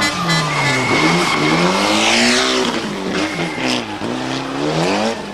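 Rally car engine worked hard on a stage, its pitch climbing and dropping several times as the driver accelerates, changes gear and lifts off.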